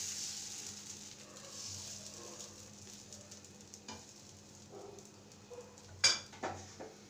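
Semolina dosa batter sizzling on a hot nonstick tawa as a ladle spreads it in circles, the sizzle fading over the first few seconds. A sharp knock comes about six seconds in, followed by a few lighter taps.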